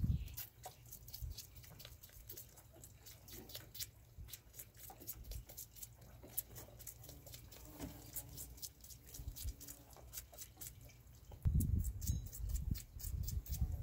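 Goat kid suckling from a milk bottle's nipple: a quiet run of irregular wet clicks and smacks. Low thumps and rumbling join in near the end.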